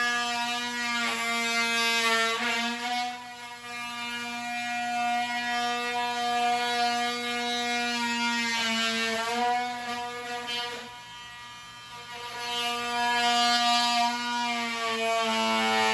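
Handheld electric power tool's motor whining steadily overhead. Its pitch dips briefly about a second in, again at about two and a half and eight and a half seconds in, and at the end, as if it bogs under load. It is quieter for a couple of seconds past the middle.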